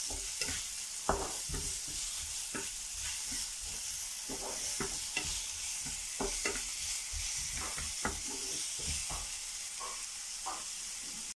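Diced onion and green pepper sizzling in a frying pan, with the irregular scraping and knocking of a wooden spatula stirring them against the pan.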